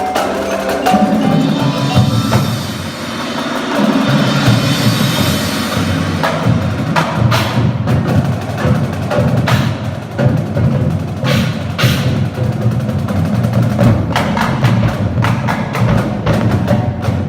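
High school indoor percussion ensemble performing: dense, rapid drum and wood strikes over a steady low pitched bass line.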